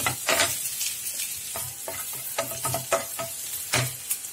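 Chopped onions sizzling lightly in butter in a nonstick frying pan, stirred with a wooden spatula that scrapes and taps the pan in irregular strokes. The onions are at the early sautéing stage, just starting to soften.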